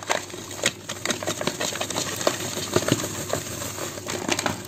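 Flour being handled in a mixing bowl: a steady run of small dry ticks and crackles.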